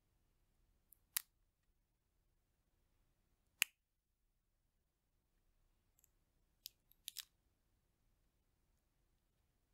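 Roasted chestnut shells cracking and snapping between fingers: a few sharp, crisp cracks, the loudest about three and a half seconds in, then a quick cluster of smaller cracks around seven seconds, with near silence between them.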